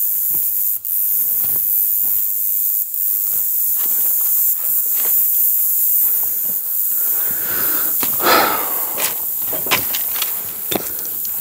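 A steady, high-pitched drone of insects, with footsteps on rocky ground and dry brush throughout and a louder rustle about eight seconds in.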